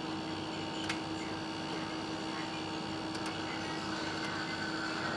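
Centurion Scientific C2 Series benchtop centrifuges running at speed with their lids closed, a steady whir and hum, with a short click about a second in.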